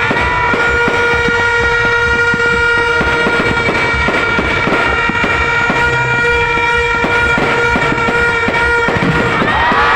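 Fireworks banging and crackling under a long, steady horn blast of several held tones that breaks off briefly near the end. Whistling glides rise and fall over it, bunched near the end.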